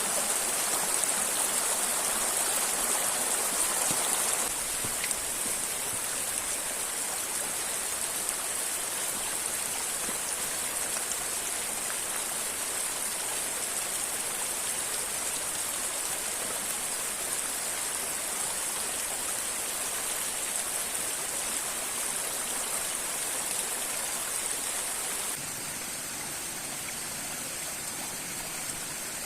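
Steady rush of a river and waterfall. It steps down in loudness about four seconds in and again near the end.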